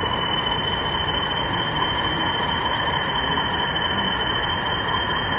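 Model Class 40 diesel locomotive running along a layout, giving a steady high-pitched whine over constant background noise.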